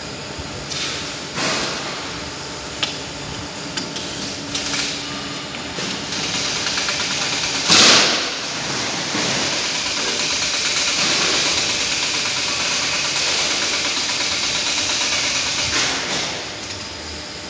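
Roller-shutter production machinery running: a few separate clanks, then from about six seconds in a steady noise that lasts about ten seconds. A single sharp, louder clatter comes just before eight seconds.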